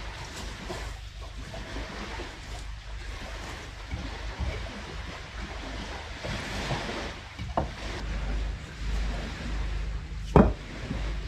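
Stones knocking and scraping together as rocks are lifted and set onto a dry-stone wall on a pebble beach, over a steady wash of sea and wind rumble. There are two sharp stone-on-stone knocks, one about seven and a half seconds in and a louder one near the end.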